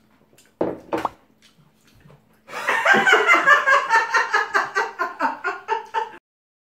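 A woman and a young man laughing hard together: a long run of rapid laughing pulses, about four or five a second, starting about two and a half seconds in and cutting off suddenly near the end, after a short sound about a second in.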